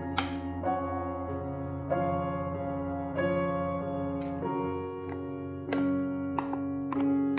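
Gentle background piano music playing slow, held chords. A few short, light knocks or taps sound over it, one near the start and several in the second half.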